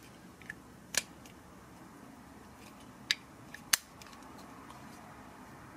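Plastic parts of a Transformers Titans Return Deluxe Misfire action figure clicking as they are moved during its transformation: a few sharp clicks, one about a second in and two more a little past the middle.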